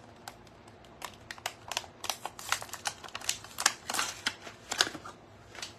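Irregular run of light clicks and taps from small hard objects being handled, starting about a second in and coming thick and fast in the middle.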